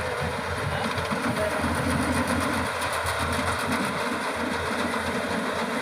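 Yanmar AW70GV combine harvester running while cutting rice: a steady, dense mechanical noise of its engine and working machinery.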